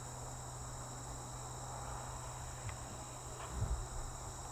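Steady, high-pitched chorus of insects trilling, with a faint low steady hum underneath.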